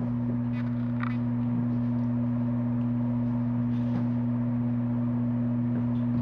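Steady electrical hum: a low buzz with a second tone an octave above it, unchanging throughout, with a few faint light clicks over it.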